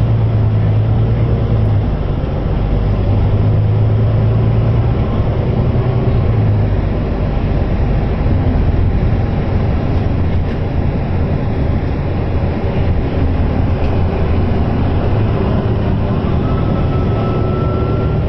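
Cabin noise of a Volvo B9TL double-decker bus on the move: a steady low drone from its diesel engine, with road noise. The drone drops in pitch about seven seconds in, and a faint rising whine comes in near the end.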